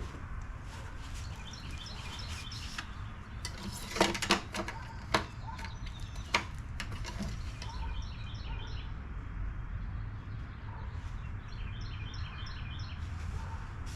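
Birds chirping in the background over a steady low hum, with a few sharp clicks and knocks about four to six seconds in.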